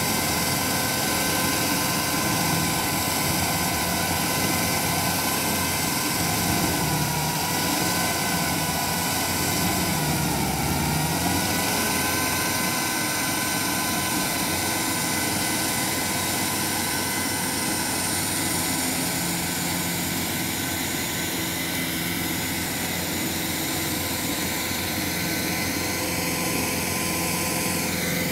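Tracked stump grinder running with its engine and cutter wheel going, a steady mechanical whine over a rough low rumble; the pitch dips briefly about ten seconds in.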